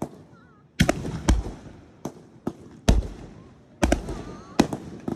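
Consumer fireworks going off: a rapid, irregular series of about nine sharp bangs, several coming in quick pairs, each fading away over a fraction of a second.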